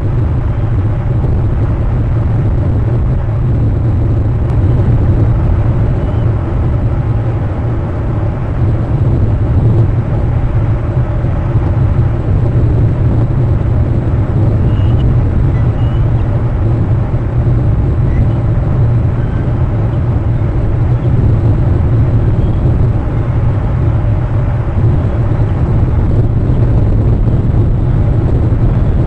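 Steady wind rumble and hiss buffeting an outdoor camera's microphone, heaviest in the low end and without let-up.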